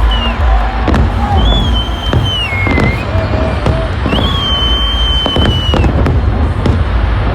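Fireworks going off: a fast run of sharp bangs and crackles over a deep, continuous rumble. Several long high whistles sound through it, one in the first second, one about one and a half seconds in, and the longest from about four to six seconds in.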